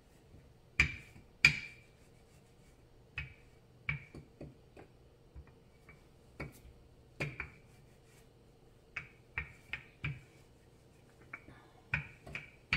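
Wooden rolling pin rolling out pasta dough on a granite countertop, giving irregular sharp clacks as it knocks against the stone. The two loudest come close together about a second in.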